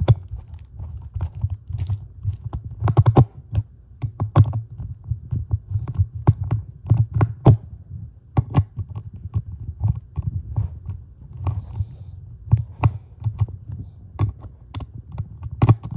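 Hand screwdriver tightening Phillips screws that fasten a ceiling fan blade to its blade arm: irregular clicks and taps of the bit and screws on the blade, over low uneven thumps of handling.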